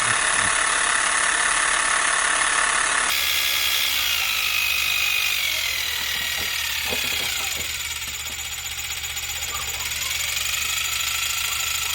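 Electric sheep shears running unoiled, with a steady mechanical buzz and whine. The pitch wavers in the middle, and the sound changes abruptly about three seconds in.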